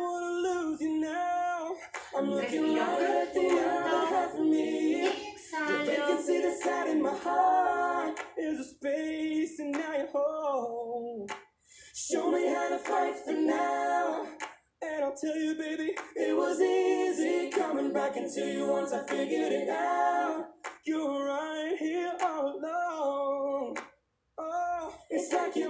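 Background song with a sung vocal line, phrase after phrase, with a couple of short breaks between phrases.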